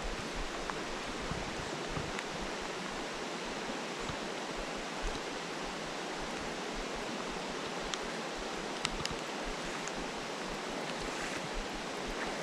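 Steady, even hiss of flowing river water and falling rain, with a few faint ticks.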